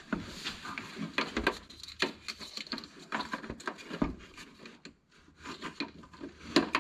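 Irregular small plastic clicks, taps and rubbing as an electrical connector is worked onto the washer fluid reservoir's level sensor.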